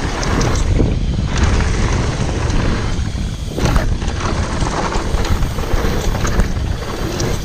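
Mountain bike riding fast down a dirt jump track: wind buffeting the handlebar camera's microphone over tyre rumble and the rattle of the bike on the dirt, with a brief lull and then a sharp thud a little past halfway, as on landing a jump.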